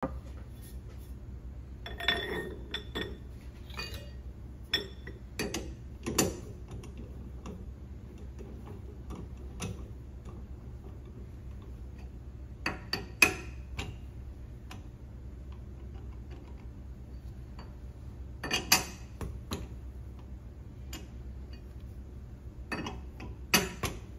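Sparse metallic clicks and knocks, some in quick pairs, as a steel pipe is handled and set into the bore of a lathe chuck, over a steady low hum.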